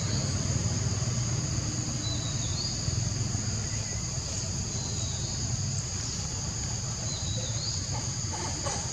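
Steady high-pitched drone of insects, crickets or cicadas, in two unbroken bands, over a low steady rumble, with a couple of brief chirps.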